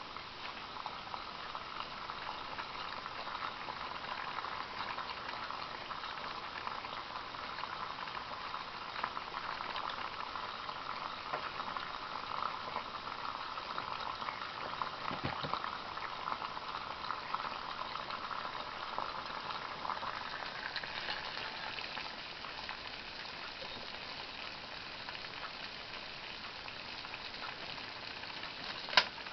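Pot of water boiling on a homemade can alcohol stove: a steady bubbling, crackling hiss that thins out after about twenty seconds. A single sharp click comes just before the end.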